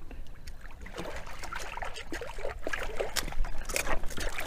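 Water splashing and sloshing in irregular bursts as a hooked striped bass thrashes at the bank's edge while being landed, loudest near the end.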